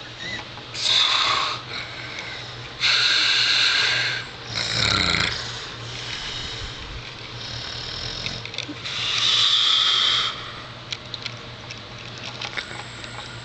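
A man snoring heavily: a run of loud snores of uneven length and spacing, the longest lasting over a second.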